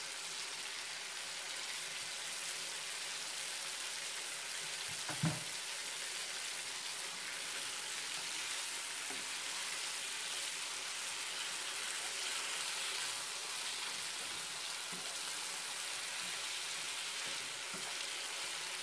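Chicken curry sizzling steadily as it fries in a pan over a turned-up gas flame, stirred with a spatula. A few light knocks of the spatula against the pan come through, the loudest about five seconds in.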